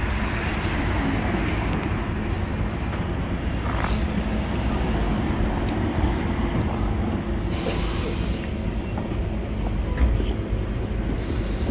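Idling engine of a compressed-natural-gas city bus, a steady low rumble, with a short hiss of released air about two-thirds of the way through.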